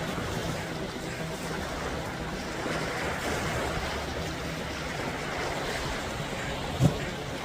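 Sea waves washing, with wind on the microphone. There is one sharp knock near the end.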